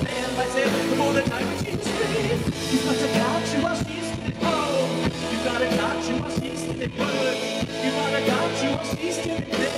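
Live rock band playing, with a male lead singer singing into a handheld microphone over bass guitar, keyboard and drums.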